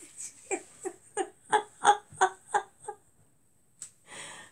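A woman laughing: a run of about nine short, pitched 'ha's at roughly three a second that trails off, followed near the end by a short breathy sound.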